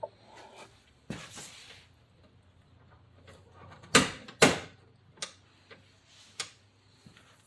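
Newly fitted Ford Sport Trac door latch being worked by hand: two sharp, loud clacks about half a second apart, then a few lighter clicks.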